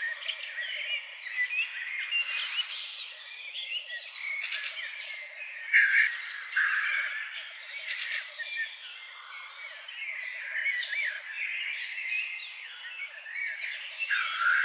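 Black grouse lek: a fast bubbling cooing from the displaying males runs throughout. Over it come many chirps and whistles from other birds, and a few short hissing bursts.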